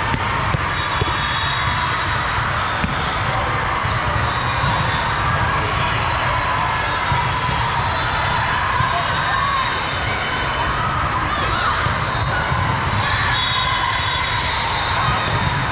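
Busy volleyball tournament hall: a steady din of many voices, with volleyballs being hit and bouncing and scattered thumps throughout.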